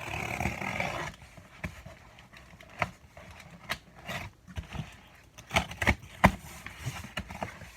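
Cardboard and plastic packaging being handled: a rustle about the first second, then scattered clicks and knocks as carded die-cast cars in blister packs are sorted through in a case.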